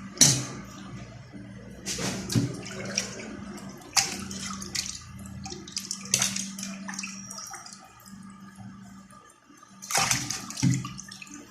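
Water running and splashing, with sharp irregular knocks and slaps every second or two, as an octopus is rinsed and cleaned by hand.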